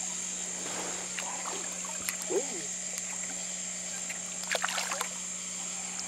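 Hooked catfish splashing at the water's surface as it is reeled up alongside the boat, with a short flurry of splashes about three-quarters of the way through. A steady high-pitched insect chorus and a low hum run underneath.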